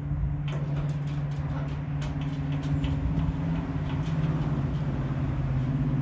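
A motor hums steadily, its pitch dipping a little near the start, with scattered light clicks over it.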